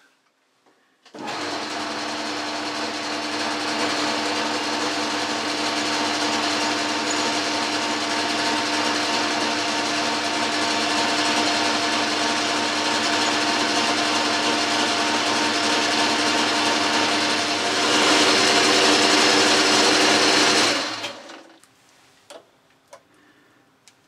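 Boxford lathe running under power while the turning tool takes a skim cut along a half-inch bar: a steady machine hum and whine over a cutting hiss. It starts about a second in, gets louder for the last few seconds, and stops about three seconds before the end, leaving a few faint clicks.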